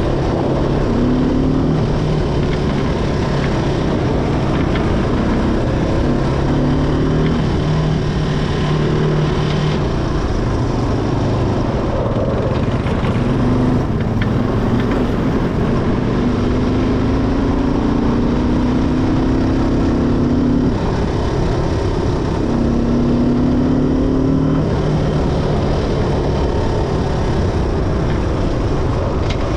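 ATV engine running under way, its pitch rising slowly several times and dropping back, over a constant rush of wind and rumble.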